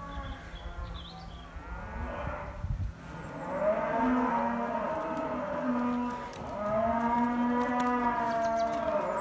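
Cattle mooing: two long moos, one after the other, starting about three seconds in, after a fainter call.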